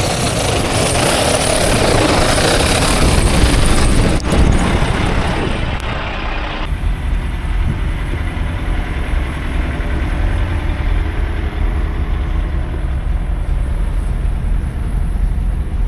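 Strong wind rushing across the microphone in a blizzard. About seven seconds in it changes abruptly to a low, steady rumble of heavy truck engines idling, with lighter wind over it.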